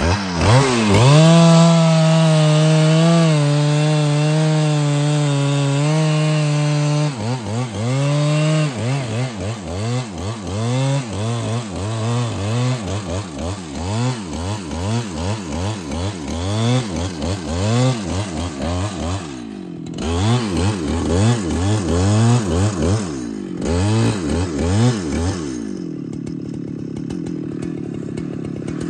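Husqvarna 395 XP chainsaw, a 94 cc two-stroke, revving up and holding full throttle for about six seconds as it cuts wood. It is then revved up and down over and over in quick swells, and drops to a low idle near the end.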